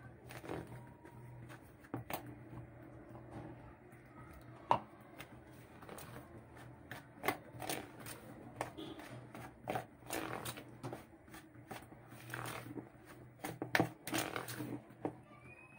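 Hands working flour and water into a shaggy mandazi dough in a bowl: irregular soft rubbing and scraping with a few light clicks against the bowl, busier in the second half, over a faint steady low hum.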